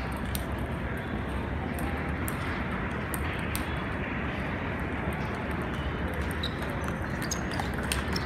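Steady hum of a large table tennis hall with scattered, faint clicks of ping-pong balls striking tables and paddles on surrounding tables; a louder click comes near the end.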